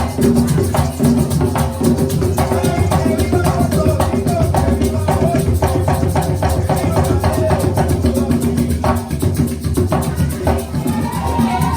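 Music with a steady beat of drums and percussion.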